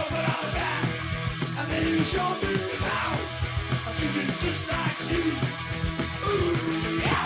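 Early-1980s punk rock song played by a full band, with a steady beat.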